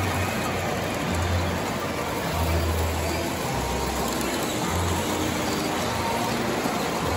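Several O gauge toy trains running on the layout's track: a steady rumble of motors and wheels, with a low hum that shifts in pitch now and then.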